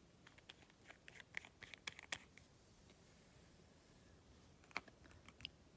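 Faint clicks and light scratching of hands handling small objects, clustered in the first two and a half seconds, then a sharper single click near five seconds.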